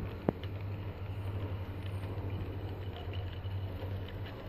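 Gauge 3 model train, a pannier tank locomotive hauling a rake of tank wagons, rolling along garden track with a steady low rumble. Scattered light clicks come through, and there is one sharp click just after the start.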